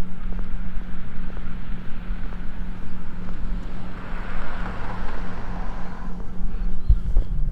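Road traffic: a car passes, its tyre noise swelling and fading between about four and six seconds in, over a steady low hum.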